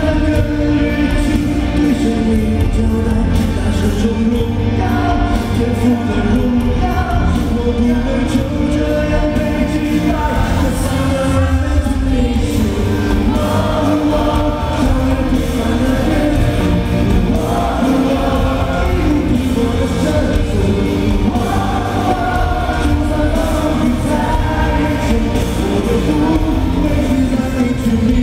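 A male pop singer singing live into a handheld microphone over loud amplified backing music with heavy bass, heard through an arena sound system from among the audience.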